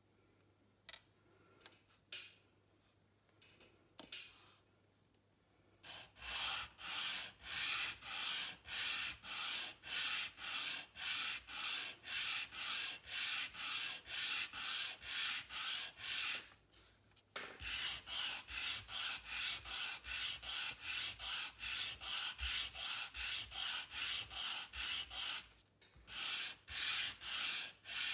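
Sanding block rubbed back and forth along a thin wooden spoke strip in quick, even strokes, two or three a second, with two short breaks. Before the sanding starts, several seconds hold only faint handling ticks.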